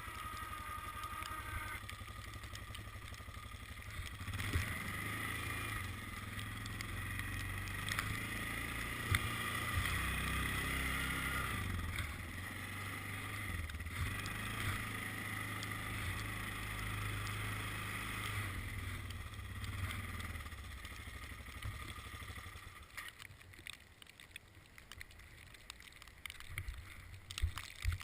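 ATV with a Bercomac Prestige 54-inch snowblower attached, engine running steadily while working through snow, with a few sharp knocks. It gets louder about four seconds in and drops away near the end.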